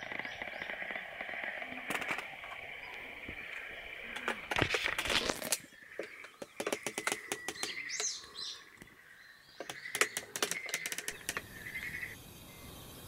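Irregular clicks and knocks from things being handled, in a dense run about four to five seconds in and with one sharp knock about ten seconds in, while birds chirp in the background.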